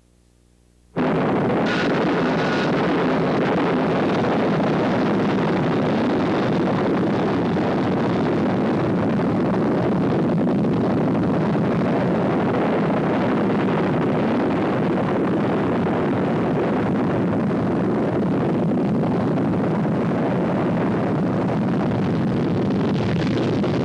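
Steady jet engine roar, a loud rushing noise that cuts in suddenly about a second in and holds an even level throughout.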